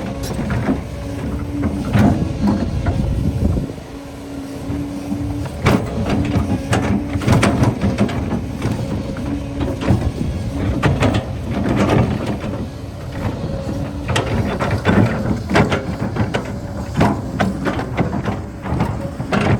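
Kobelco excavator working: its diesel engine running steadily under load, with repeated knocks and clanks from the bucket digging and dumping dirt and rock. The engine eases off briefly about four seconds in, and a steady hum comes and goes over the rumble.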